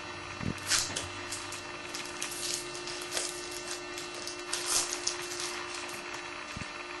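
Stiff, glossy Bowman Chrome football trading cards being handled and slid past one another while a pack is gone through. There are several short rustles over a steady low hum.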